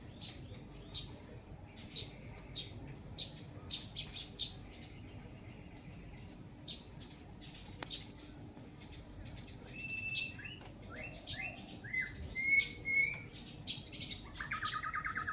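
Wild birds chirping: a steady run of short, high chirps, joined about ten seconds in by several whistled notes and, near the end, a fast trill.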